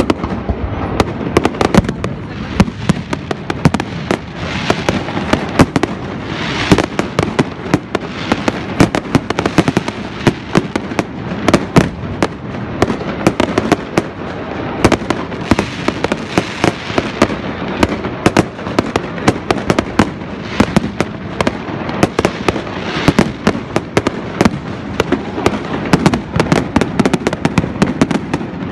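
Fireworks and firecrackers going off without pause: a dense, rapid crackle of sharp bangs, several a second, over a continuous rumble of further bursts.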